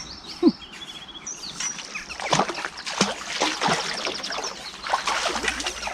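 A hooked tench splashing and thrashing at the water's surface as it is drawn toward the landing net, several splashes from about two seconds in. Small birds chirp in the first second and a half, and a brief loud sound comes about half a second in.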